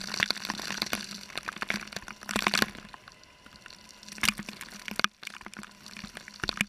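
Outdoor shower spraying water that spatters onto a wetsuit, bare feet and wet concrete, with sharp splashing hits over the steady hiss of the spray. A faint steady hum runs underneath.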